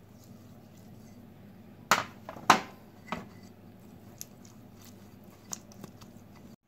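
Silicone pastry brush spreading oil inside small clay pots: soft brushing with a few sharp taps on the clay, the loudest two about two seconds in and half a second apart, then a few faint ticks.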